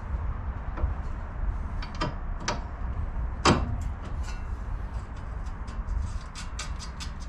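Scattered sharp clicks and knocks, the loudest about three and a half seconds in, then a quicker run of light clicks toward the end, over a steady low hum.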